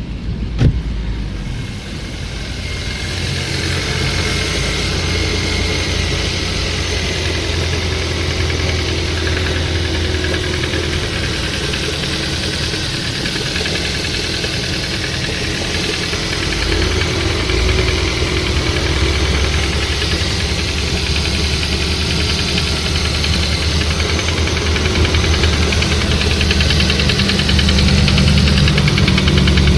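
Nissan CR14DE four-cylinder engine running cold with a knocking, which the owner traced to a faulty variable valve timing (VVT-i) phaser coupling. A single sharp click sounds under a second in, and the engine gets a little louder later on.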